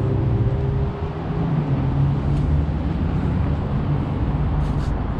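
Road traffic on a city street: car engines running as vehicles drive past.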